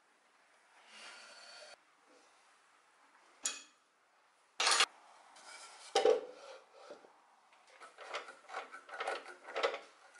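Pine workpieces being handled on the metal table of a planer/jointer's mortising attachment: scraping slides and several sharp knocks, the loudest about halfway through, then a run of short rubs as the beam is shifted into place. The mortiser itself is not running.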